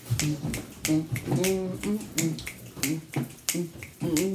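Fingers snapping in a steady rhythm, about three snaps a second, with a voice humming along without words.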